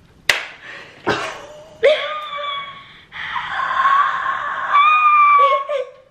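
A raw egg smacked down and breaking on a boy's head about a third of a second in, with a second sharp smack just after. Then loud shrieking and laughter, the longest shriek in the last three seconds.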